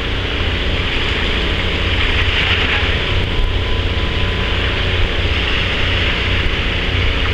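Twin Yamaha 115 outboard motors idling steadily, a low hum under a constant hiss of wind on the microphone.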